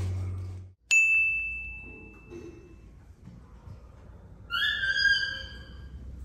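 A steady low hum cuts off abruptly, then a sharp, bright ding rings out about a second in and fades over a couple of seconds. Near the end a second, lower-pitched ringing tone sounds for about a second, sagging slightly in pitch.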